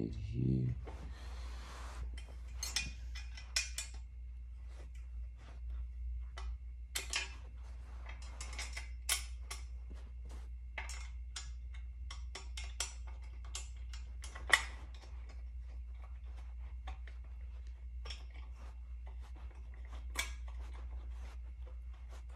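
Scattered small clicks, taps and light rattles of metal and plastic parts being handled and fitted at the rear of a Can-Am Ryker, with one sharper click about halfway through. A steady low hum runs underneath.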